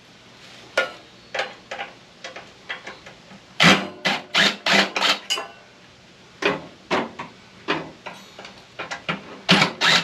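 Hand tools knocking and clanking against the metal parts of a microwave being taken apart: scattered sharp knocks, with quick runs of several knocks about four seconds in and again near the end.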